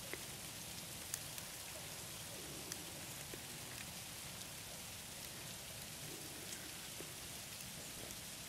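Falling snow pattering steadily, with scattered faint ticks.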